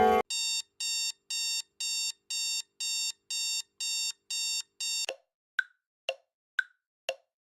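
Electronic alarm clock beeping: short, evenly spaced beeps about two a second. After about five seconds it stops, and a clock's tick-tock follows at about two ticks a second, alternating a lower and a higher click.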